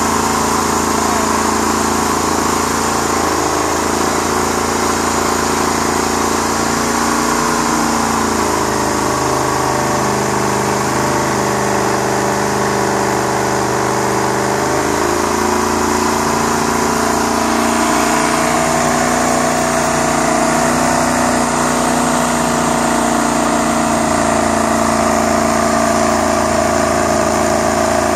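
Old tow truck's engine held at high revs through a long burnout, its pitch shifting up and down several times as the throttle changes, with the rear tyres spinning and squealing against the pavement.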